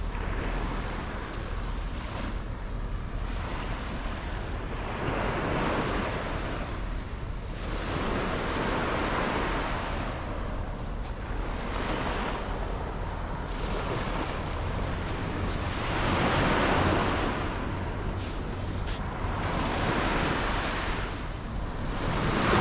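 Sea waves breaking and washing up the shore, the surf swelling and fading every few seconds. A steady low rumble of wind on the microphone runs under it.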